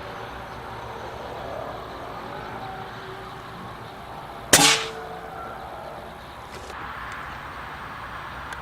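A single shot from an Air Arms S410 bullpup PCP air rifle: one sharp crack about halfway through, with a brief ringing tail.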